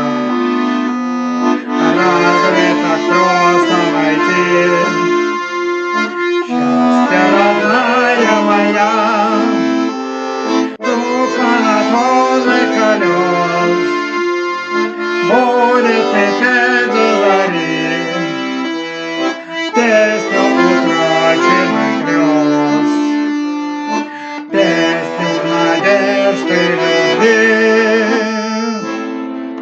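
Accordion playing a song melody over sustained chords, stopping abruptly near the end.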